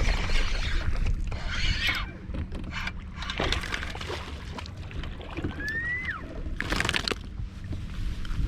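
Ambience on a bass fishing boat: wind and water noise over a steady low hum, with a few light clicks. About six seconds in there is a short whistle that rises then drops, followed by a brief rush of noise.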